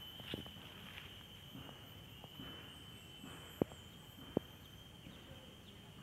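Faint steady high-pitched insect drone, with a few sharp clicks and snaps scattered through it; the two loudest come about three and a half and four and a half seconds in.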